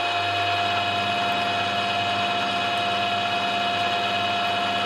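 Milling machine spindle running steadily with an end mill cutting the end of a brass ruler: an even whine that does not change in pitch.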